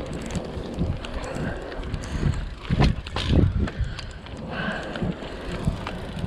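Wind noise on a chest-mounted camera's microphone as a Trek Marlin 5 mountain bike rolls along wet pavement. A louder, rough patch of buffeting and knocks comes about three seconds in.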